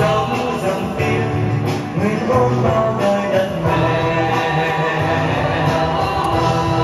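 Music with a singing voice and a melody over a low accompaniment.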